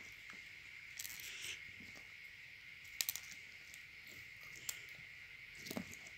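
Clear glitter slime being squeezed and kneaded by hand: faint squishes and small crackling pops in a few short bursts, the loudest about three seconds in.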